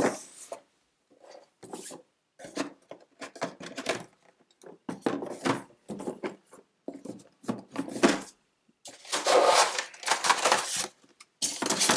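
Cardboard game boxes and components being handled and packed into a larger cardboard game box: irregular rustling, scraping and soft knocks, busiest about nine to ten and a half seconds in.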